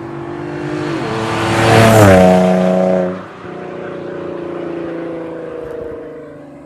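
Nissan 370Z's VQ37 V6 with a Fast Intentions TDX non-resonated catback exhaust, driven past under acceleration. The exhaust note builds to a loud peak as the car passes about two seconds in and drops in pitch. The level falls sharply a little after three seconds, then the note fades as the car pulls away.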